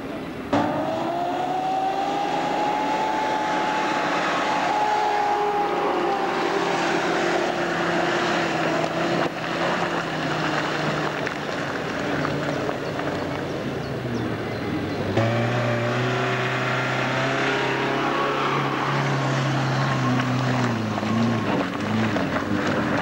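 Off-road 4x4 engine running under load, its revs rising and falling slowly. About two-thirds of the way through, the engine note changes abruptly to a stronger, lower one.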